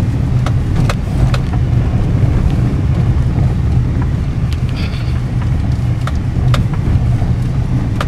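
Steady low road rumble of a moving car, heard from inside the cabin, with scattered small clicks and knocks.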